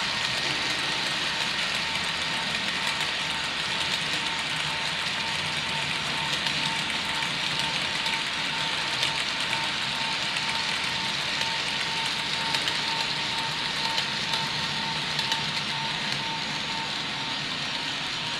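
Model freight train rolling along the layout track: a steady hiss of small wheels running on the rails, with a steady high hum.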